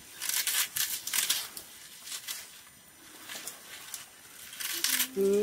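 Fresh leafy greens being torn and snapped by hand: a handful of short, crisp crackling rustles with short pauses between them.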